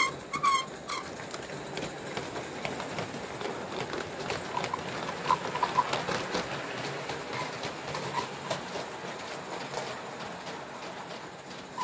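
G-gauge live-steam model locomotive running with its train: a steady soft hiss with light, rapid clicking from the wheels on the track. A bird chirps briefly several times, a cluster at the start, a few in the middle and again at the end.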